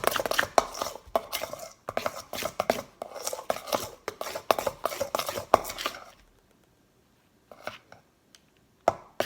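A spoon stirring shaving cream into glue in a bowl, clicking and scraping rapidly against the bowl's sides; it stops about six seconds in, leaving a few single knocks near the end.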